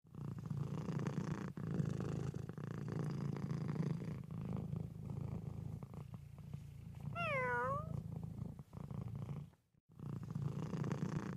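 Cat purring steadily, with one short meow that falls and rises in pitch about seven seconds in; the purring breaks off briefly near the end and then resumes.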